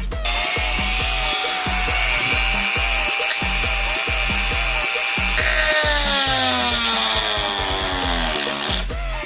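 Dance music with a steady bass beat, with a power tool running under it whose pitch falls slowly from about halfway through.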